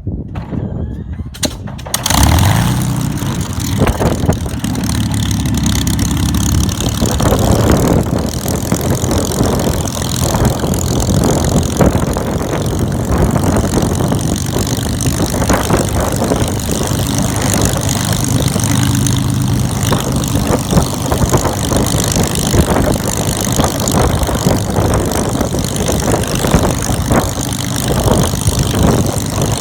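Supermarine Spitfire Mk VIII's Rolls-Royce Merlin V12 engine catching about two seconds in, its pitch rising as it fires up, then running steadily and loud at low revs.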